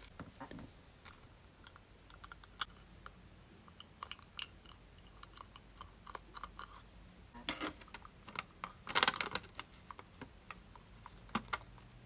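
Small squishy toys made of thick clear adhesive tape squeezed and handled, giving scattered light clicks and sticky crackles, with louder crackling about seven and a half and nine seconds in.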